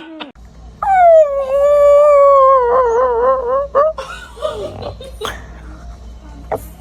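A dog howling: one long call of about three seconds that starts high, slides down and wavers near its end, followed by a few shorter yips and noises.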